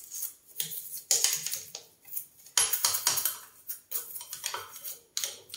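A toothbrush scrubbing a chrome mixer tap and the ceramic basin around it, in quick, irregular strokes of scratchy hiss.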